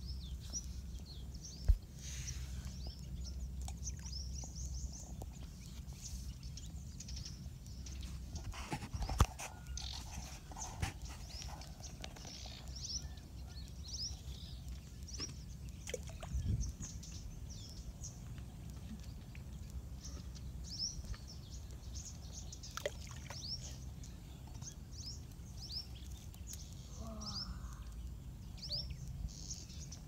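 Birds chirping, with many short, high, falling chirps repeating throughout, over a low steady rumble. There are sharp knocks about two seconds in and again about nine seconds in.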